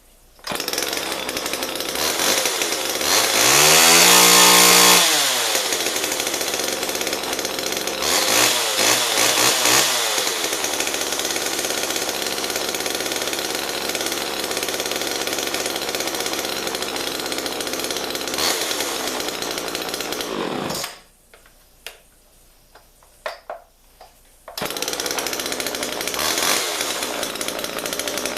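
Homelite two-stroke chainsaw firing up on the first pull and running. It is revved high twice early on, idles steadily, shuts off, then is restarted and runs again near the end.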